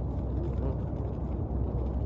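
Steady low rumble of waves on open water.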